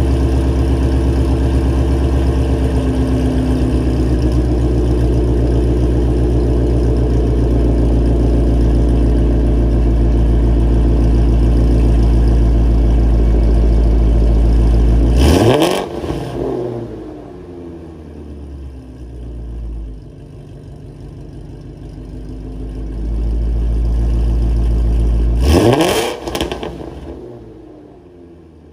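2017 Ford Mustang Shelby GT350's 5.2-litre flat-plane-crank V8 breathing through catless long-tube headers, a 3-inch H-pipe and stock active mufflers. It idles steadily, then is revved sharply twice, about ten seconds apart, and after each rev it drops back to a quieter idle.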